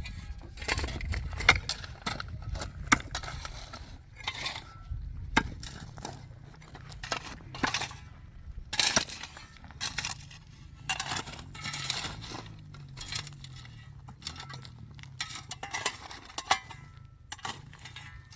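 Irregular scraping, crunching and light clinking from manual work on soil and gravel at a building site, with a low rumble in the first few seconds.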